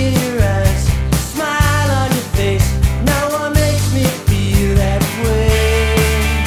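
Background rock-style song with a steady drum beat, bass and a melodic lead line.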